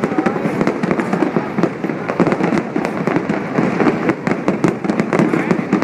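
Fireworks going off in a dense, continuous barrage of many sharp bangs and crackles every second, with no pause.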